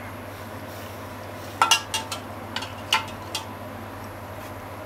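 A utensil clinks and knocks against the frying pan a handful of times while minced pork in broth is stirred, the strikes bunched in the middle. A steady low hum runs underneath.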